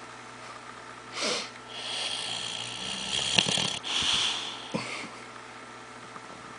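A sleeping dog snoring: a short snore about a second in, then a long snore of about two seconds carrying a thin high whistle, and a shorter one just after four seconds.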